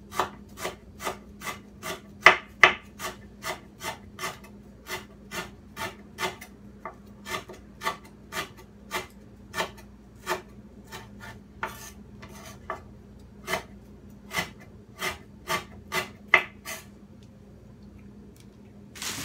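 Knife slicing lemongrass thinly on a wooden cutting board: steady, even strikes of the blade on the wood, about two to three a second, stopping a couple of seconds before the end.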